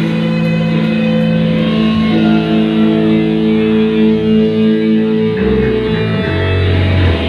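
Loud live band of electric guitar and bass holding long, sustained notes. The notes change about five and a half seconds in and settle on a lower note.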